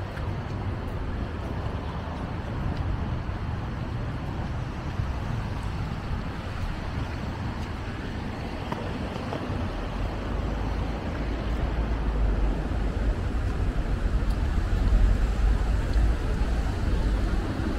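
Street traffic noise: a steady wash of passing cars, with a deep rumble coming in about halfway through and growing louder toward the end.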